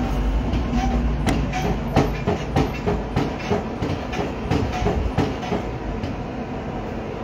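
Coal forge fire burning hard under an air blast, with an iron bar heating in the coals: a steady low rumble with irregular clicks and knocks that thin out after about five seconds.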